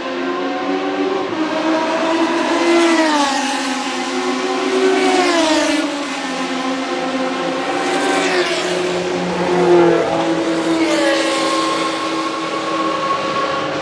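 Historic Formula 1 race car engines running at high revs as cars pass. The engine pitch drops sharply about four times.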